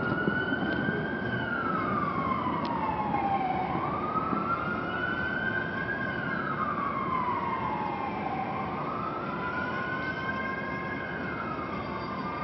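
Siren wailing, rising and falling slowly about three times, over steady background noise.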